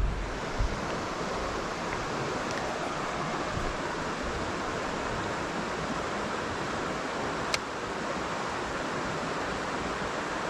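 Steady rush of creek water flowing over rocks, an even hiss with no letup. A single sharp click sounds about seven and a half seconds in.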